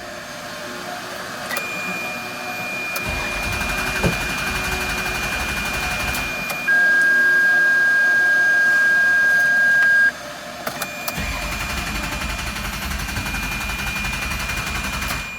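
A flood-damaged car's alarm sounding a steady high electronic tone. Midway it switches for a few seconds to a lower, louder tone, then returns to the high one. The owner puts it down to a fault in the alarm computer.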